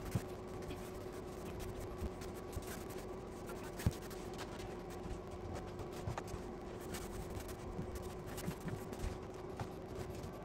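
Faint room tone: a low steady hum with scattered light clicks and taps.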